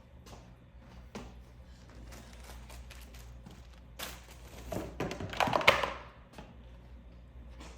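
Items being handled and set down in a small room: scattered light knocks, then a cluster of louder thunks and rattles about four to six seconds in, over a low steady hum.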